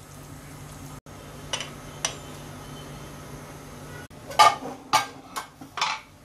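Metal clanking against a pressure cooker pot: about five sharp, ringing knocks in the last two seconds. Before that there is only a faint steady hum with a couple of small clicks.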